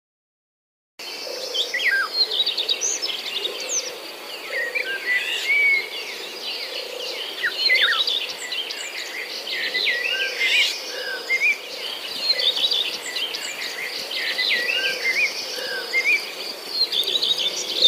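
Many birds chirping and singing over a steady high insect-like hiss, starting about a second in after a moment of silence.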